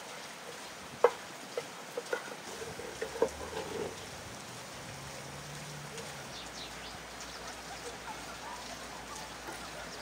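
Large kitchen knife cutting through a baked herb-and-egg dish in a clay pan, the blade clicking and tapping against the pan several times in the first four seconds, loudest about a second in. A steady faint outdoor hiss runs underneath.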